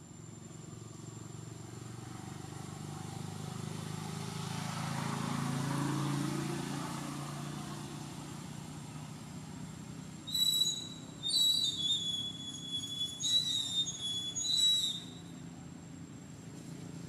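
A motor vehicle passes, its low rumble swelling and fading away. From about ten seconds in come several short, high-pitched squeals over some four seconds, the loudest sounds here.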